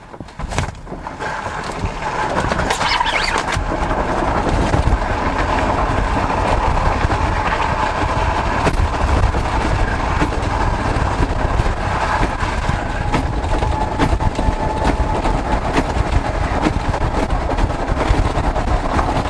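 Steady rumble of boots sliding over a snow-covered road as a person is towed behind a moving electric golf cart, mixed with wind buffeting the microphone. It builds up over the first two seconds, then holds steady with a faint whine.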